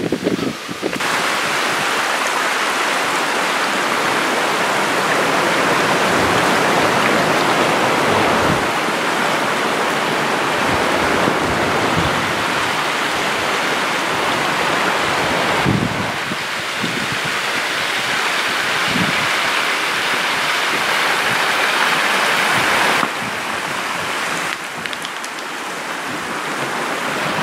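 Mountain river rushing steadily over its rocky bed, dipping slightly in level a couple of times in the second half.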